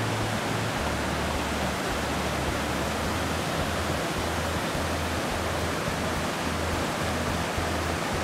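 Steady rush of a waterfall: water pouring down a rock face and churning over boulders in the pool below. The falls are man-made, fed by a pump from a reservoir behind the mountain.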